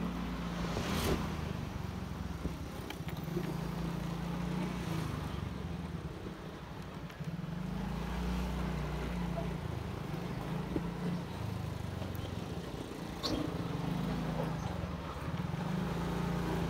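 Motorcycle engine running at low speed, heard from the rider's own bike, its note swelling and easing off with the throttle.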